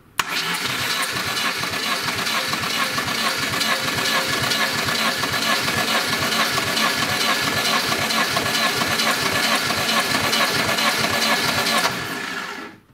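Starter motor cranking the Lada Niva 21213's 1.7-litre carburetted four-cylinder engine with its spark plugs out for a compression test: an even, rapid chugging with the starter's whine, stopping about twelve seconds in. The engine burns oil and fouls its plugs, which the owner blames on worn piston rings.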